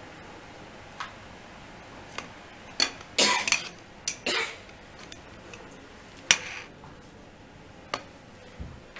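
Irregular sharp clicks and clatters of hard plastic connectors and cables being handled on a wooden desk, with a quick cluster about three to four seconds in and the loudest single knock a couple of seconds later.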